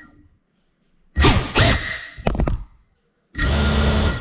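GEPRC Cinelog cinewhoop's motors and ducted propellers throttling up in short bursts, each a rush of prop noise with a motor whine that quickly dies away. A cluster of quick bursts comes about a second in, then a longer, steadier burst near the end.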